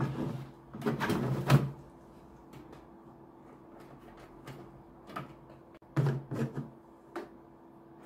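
A plastic fuel tank with diesel sloshing inside is set down onto a metal shelf, clunking and scraping, loudest about a second and a half in. Later come a few lighter knocks and clicks as parts are fitted back together by hand.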